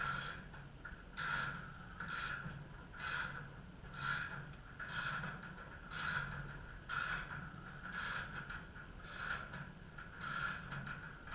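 A mechanism worked in regular strokes, about one a second, each stroke a short burst of noise, over a steady low hum.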